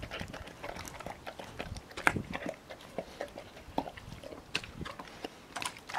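A Weimaraner eating raw food out of a stainless steel bowl: irregular chewing and biting, with a sharp crunch about two seconds in.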